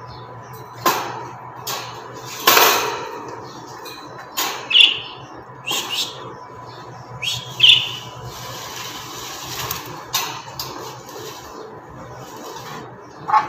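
Small caged pet birds giving a few short, high chirps, mixed with scattered clicks and rattles from hands working at the birdcage's floor and feeder. A faint steady hum runs underneath.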